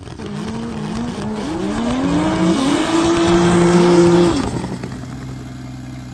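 Drift car engine revving in several rising pulls, then held at high revs with tyre squeal for over a second. About four and a half seconds in the revs and squeal drop away and the engine settles to a steady idle.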